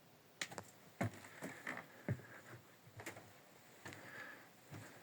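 Footsteps on a wooden floor: a handful of irregular soft knocks with faint creaks from the boards.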